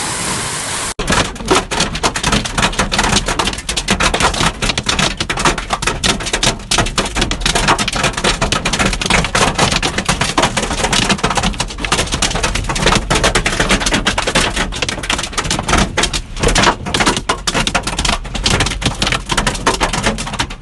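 Hailstones pelting a car's roof and windscreen, heard from inside the car: a dense, uneven clatter of hits over a low rumble. For the first second, before it, there is a steady hiss of hail and rain falling on the ground.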